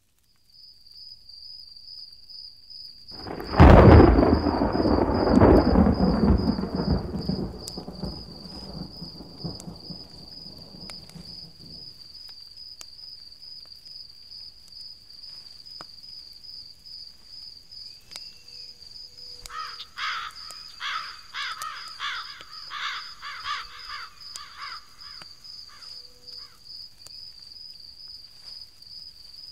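A thunderclap about three and a half seconds in, rumbling away over the next several seconds, over a steady high-pitched insect trill. Later comes a quick run of sharp chirping calls.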